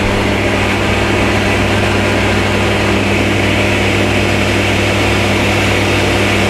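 Cabinet table saw running steadily with its blade spinning free as it is raised up through the crosscut sled, a dust extractor running with it: a steady hum with a hiss above it.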